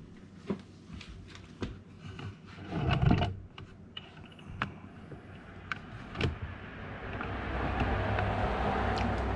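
Scattered clicks and knocks of audio cables and equipment being handled and plugged in, with a louder scraping burst about three seconds in. A steady low noise comes up about seven seconds in and holds.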